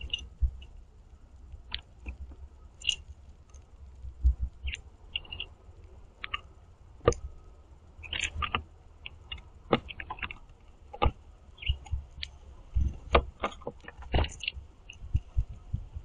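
House finch pecking and cracking seeds on a wooden platform feeder: irregular sharp taps and clicks, several a second at times, with the loudest knocks about seven, eleven and fourteen seconds in.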